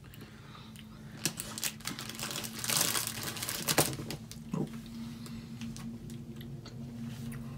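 Crinkling and rapid small clicks of a plastic sweet packet being handled, densest about three seconds in.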